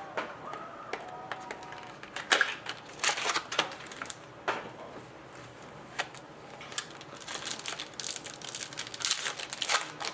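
A hockey card box and its pack wrappers being torn open and handled by hand: a run of rustles, rips and sharp clicks, growing busier in the last few seconds.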